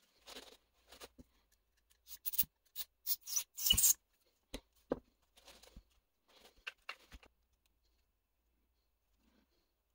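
Paper towel rustling and scrubbing against a plastic RC transmission case as it is wiped clean, loudest in a run of quick scrapes about two to four seconds in. This is followed by a few sharp clicks and taps as parts are set down and handled.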